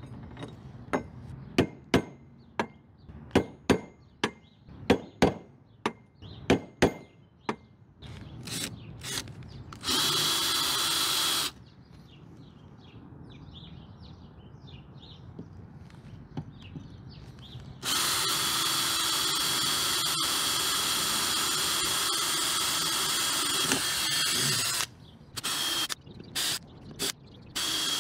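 About a dozen sharp, ringing metal taps, a hammer striking the steel rail to mark a hole. Then a Ryobi cordless drill drills into the steel channel, first briefly and then in a steady run of about six seconds, with short trigger bursts near the end.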